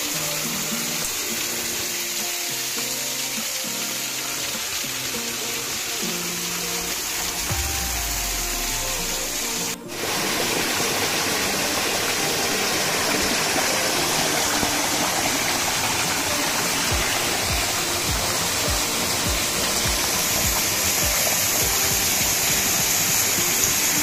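Small waterfall pouring onto rocks and into a shallow pool, a steady rushing splash, under background music. A short break comes about ten seconds in; after it the water is louder and the music faint, with irregular low thuds.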